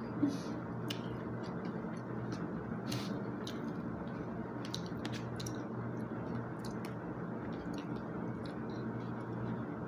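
Someone chewing food, with scattered light clicks and scrapes of a plastic fork and spoon against a plastic meal tray, over a steady low background hum.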